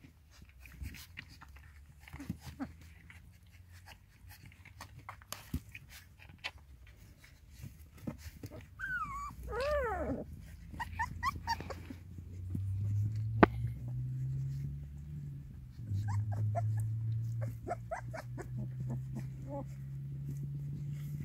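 Puppies suckling at their mother's teats, with small wet clicks and smacks throughout. About nine seconds in a puppy whines, rising and falling, followed by a few short squeaks, and from about halfway a low steady rumble continues to the end.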